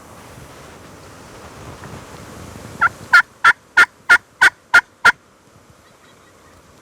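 Hunter's turkey call sounding a run of eight evenly spaced hen yelps, about three a second, starting about three seconds in, to call nearby turkeys in.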